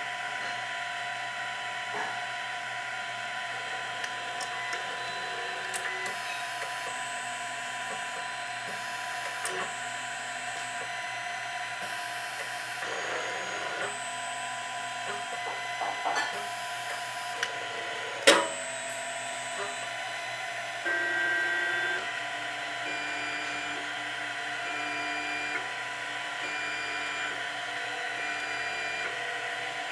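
Printrbot Play 3D printer printing: a steady whir from the print-head cooling fan, with the stepper motors whining in short tones that change pitch every second or so as the head and bed move. A few small ticks, and one sharp click about 18 seconds in.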